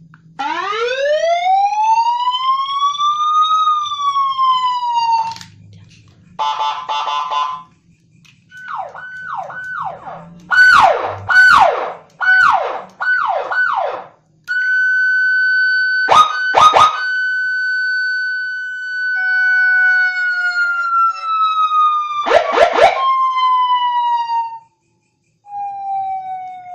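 Nine-tone electronic siren stepping through its sounds: a slow rising-and-falling wail, a buzzing warble, a run of quick falling yelps, then a long steady high tone that slowly drops, at times with a second lower tone sounding with it. Short loud blasts break in twice.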